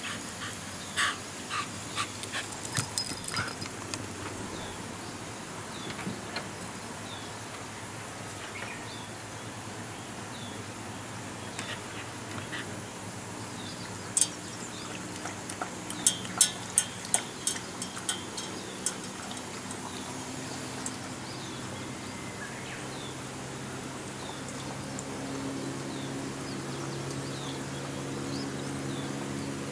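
Shiba inu lapping water from an aluminium pot: a run of wet clicks about halfway through. A louder cluster of sharp clicks and taps comes about three seconds in. A low steady hum builds toward the end.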